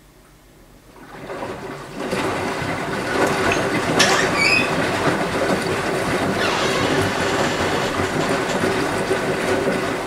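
Beko WMY 71483 LMB2 front-loading washing machine drum starting to turn about a second in and tumbling the wet laundry, water sloshing over a steady motor hum, during its rinse cycle.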